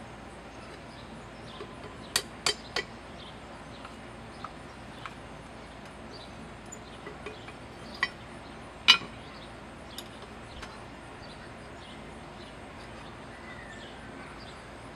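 Hand hammer striking a hot claw-hammer head on a ridged steel plate used as an anvil, forging it into a small hatchet blade: sharp metallic clinks, three quick blows about two seconds in, then two more about a second apart (the second the loudest) and a lighter one after, with small ticks of metal between.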